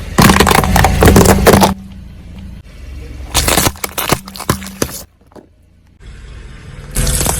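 Objects crunching and crackling as they are crushed under a car's tyres, in three bursts over a steady low rumble.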